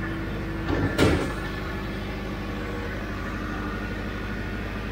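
Steady machinery drone in a ship's bow engine room, with a single sharp knock about a second in, just after a smaller one, as a metal panel is handled.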